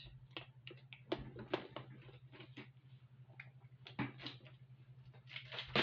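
Scattered small clicks and taps of jewellery findings and their containers being handled while searching through beading supplies for a pinch bail, with a cluster of clicks near the end and a steady low hum underneath.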